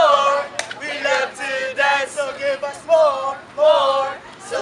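A group of men and women chanting and singing a team cheer in unison, in short rhythmic phrases.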